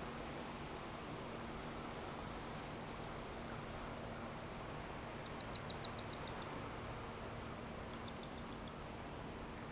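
Three quick runs of short, high, down-slurred chirps, about seven or eight notes a second, the middle run loudest, over a steady faint hiss.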